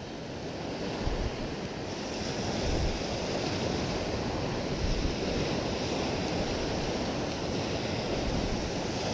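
Gulf surf breaking on the beach close by, a steady wash of waves, with wind buffeting the microphone in low rumbles.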